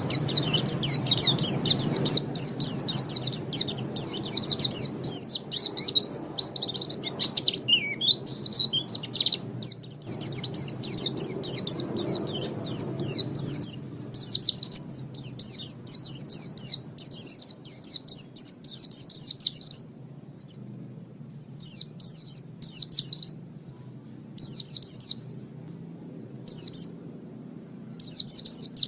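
White-eye (pleci) singing: a fast, high-pitched twittering chatter of rapid chirps. It runs unbroken for most of the time, then breaks into short separate phrases near the end.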